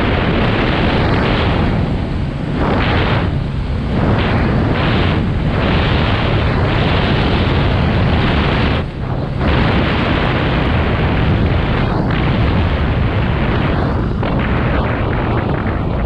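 KTM EXC 450 enduro bike's single-cylinder four-stroke engine running while riding, loud and rough, mixed with wind on the camera microphone. The sound dips briefly several times, deepest about nine seconds in.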